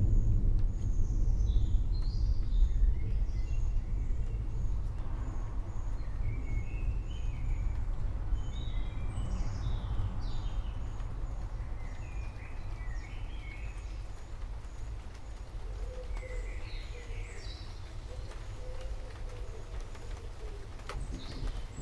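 Low thunder rumble slowly fading away, with birds chirping on and off over it. A new rumble of thunder begins right at the end.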